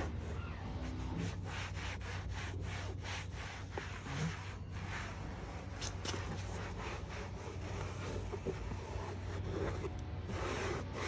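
Microfiber towel rubbing back and forth over a plastic door panel, buffing in vinyl protectant: a quick run of dry swishes, about three a second, louder near the end, over a steady low hum.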